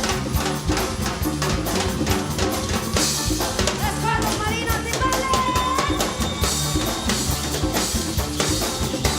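Live Latin rock band playing an instrumental passage: a drum kit and bass keep a steady groove with rimshots on the snare, and a lead melody line slides and bends between notes about four seconds in.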